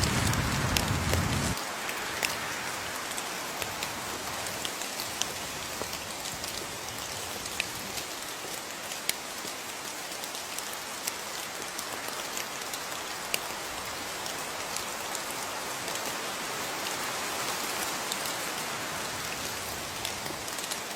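Steady rain falling, with scattered sharp ticks of single drops striking close by. A low rumble sits under it for the first second and a half, then stops.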